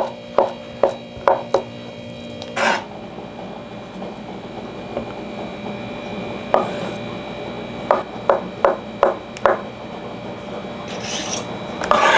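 Kitchen knife chopping boiled potato and carrot on a wooden cutting board: quick runs of blade strikes against the board, about two or three a second, with pauses between. A brief rush of noise comes near the end.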